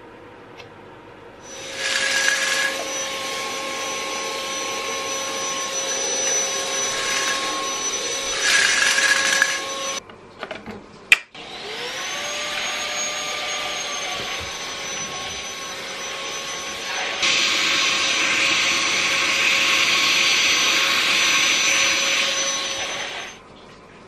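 Philips 3000 Series cordless stick vacuum cleaner running with a steady high whine and rush of air, switched off about ten seconds in. After a sharp click it starts again, its whine rising as the motor spins up, gets louder for the last few seconds, then shuts off.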